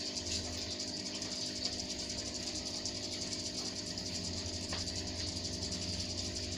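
Aquarium's submersible pump humming steadily, with a constant hiss of moving water and rising air bubbles. One faint click late on.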